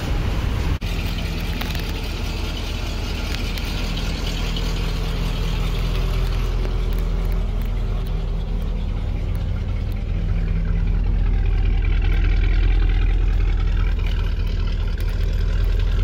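GM 427 big-block V8 engine of a 1979 GMC 6000 Blue Bird school bus running steadily, heard from inside the bus. The sound drops out briefly about a second in, and the engine grows a little louder in the second half.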